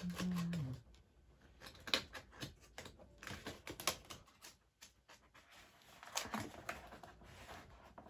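A steady low tone with one overtone slides down and stops within the first second. Scattered, irregular light clicks and taps follow, like typing or handling small hard objects.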